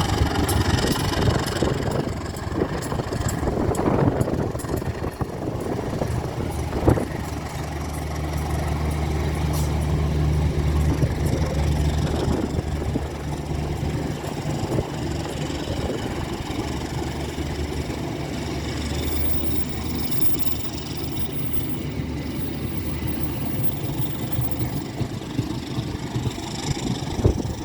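Diesel locomotive engine running as a steady low drone, strongest through the middle of the stretch, with a sharp knock about seven seconds in.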